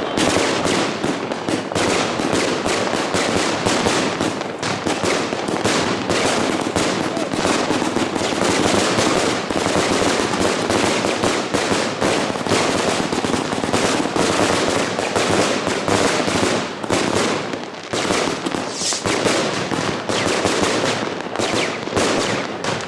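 Zenfireworks 'Willow mine to Crown' consumer fireworks cake firing: a rapid, unbroken string of shots and bursts with no pause.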